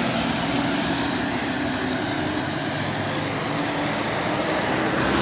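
A truck engine running steadily, with a low hum under a wash of road noise.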